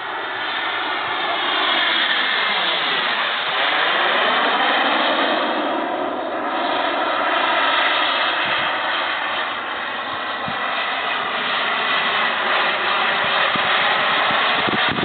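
Model gas-turbine engine of an RC jet running at flight power: a steady high-pitched whine over a jet rush. The sound sweeps down and back up about three seconds in as the jet passes.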